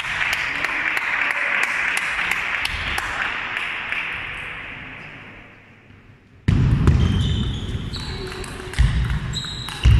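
Table tennis ball clicks on bats and table as a rally gets going in the second half, over a low rumble in a large hall. Before that, a hiss-like rush of noise fades away over about six seconds.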